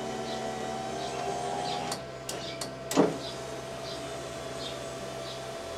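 Power window motor and regulator in the driver door of a 1986 Oldsmobile 98 running the glass down and back up, with the door panel off. It drones steadily, with a few clicks about two seconds in and a loud clunk about three seconds in as the glass stops. The regulator is being tested after a broken plastic window guide clip was replaced and greased.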